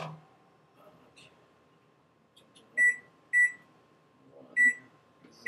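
Microwave oven keypad beeping as its buttons are pressed to set a defrost-by-weight cycle: four short, high beeps, the first two about half a second apart and the others more spread out.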